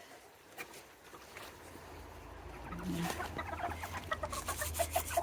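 Serama bantam chickens clucking, a few faint clucks at first, then a quick run of short clucks several a second that grows louder near the end.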